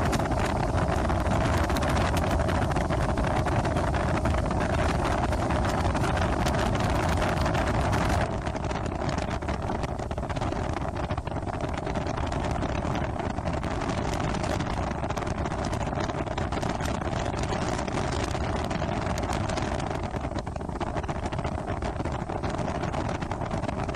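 Baja Sidewinder speedboat's 5.7-litre 350 Mag V8 running under way, mixed with wind rushing over the microphone and water rushing past the hull; the overall sound drops a little about eight seconds in.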